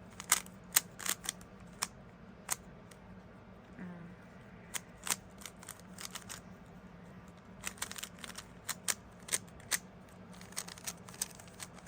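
Rubik's Cube being turned by hand, its plastic layers clicking in irregular runs of sharp clacks with short pauses between them.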